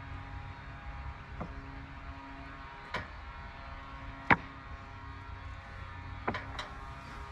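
Five sharp wooden knocks, the loudest about four seconds in, as sawn oak boards are handled. A steady low hum runs under them.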